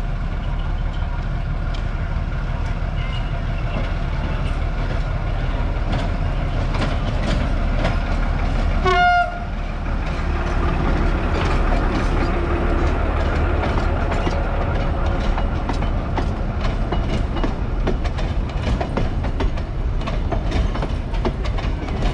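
Narrow-gauge Lyd2 diesel locomotive running past with a train of wooden passenger coaches, its engine a steady low drone. It gives one short horn toot about nine seconds in. Wheels click over the rail joints as the coaches roll by.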